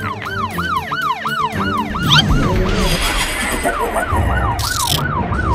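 Police car siren in a rapid yelp, its pitch sweeping up and down about three times a second, with a short break partway through. A low rumble comes in under it later, and a brief hiss sounds near the end.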